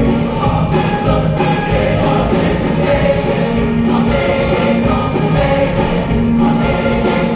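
Live choir singing with instrumental accompaniment, held notes over a steady beat.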